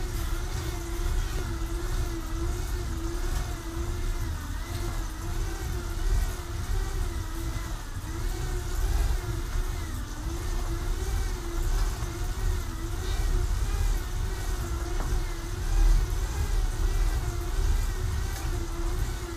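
Road bicycle ridden steadily on indoor training rollers: the tyres and roller drums give a continuous whir that wavers slightly in pitch, over a low rumble.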